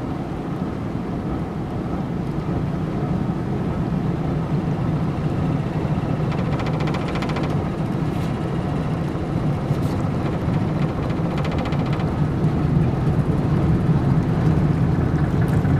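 Steady low drone of a loaded inland cargo barge underway, slowly growing a little louder.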